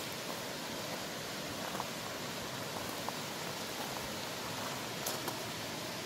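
Steady rush of a rocky mountain stream, with a few faint clicks.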